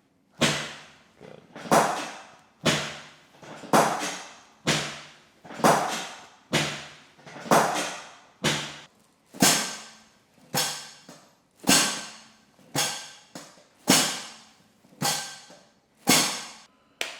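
A steady series of about sixteen sharp thuds, evenly spaced about one a second, each ringing briefly before the next.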